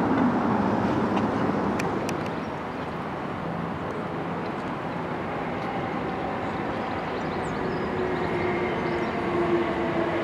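Steady road-traffic noise that drops away about two and a half seconds in. Then a pair of Class 455 electric multiple units approaches the station, a low running hum with a steady tone growing slowly louder toward the end.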